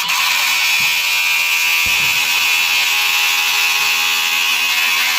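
Electric grinder running at a steady speed, cutting off the metal safety contact tip of a nail gun: a steady high whine with the hiss of grinding.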